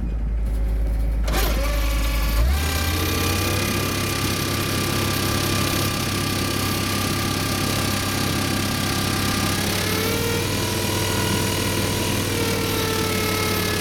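Skid steer loader's engine running steadily. It speeds up about two and a half seconds in, and a whine bends in pitch near ten seconds and again near the end.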